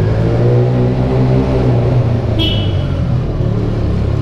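Motorcycle engine pulling away, its pitch rising as it accelerates through the first couple of seconds, then running on steadily. A short horn toot sounds about halfway through.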